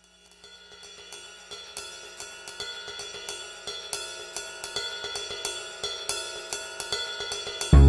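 Intro music fading up from silence: a quick hi-hat and cymbal pattern over held tones, growing gradually louder, then heavy bass and drums come in suddenly near the end.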